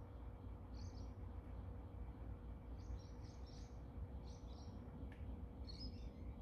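Faint birds chirping: a few small groups of short high chirps, over a low steady background rumble.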